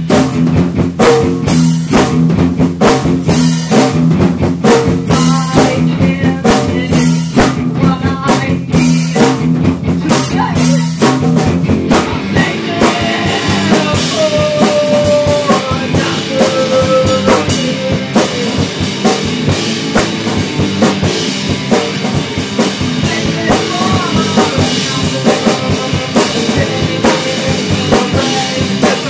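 Rock band demo with drum kit and guitar, the drums keeping a steady beat with rimshots and bass drum under chords. About twelve seconds in the low chords drop away and a single melodic line comes in over the drums.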